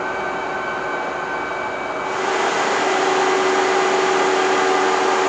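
Steady whirring and humming of a pickup truck running on a chassis dynamometer's rollers in a test cell, with a steady tone under the noise. About two seconds in the sound gets louder and brighter.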